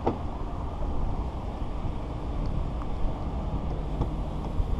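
Steady low rumble of vehicle noise, with a sharp knock at the very start and a few faint clicks later on.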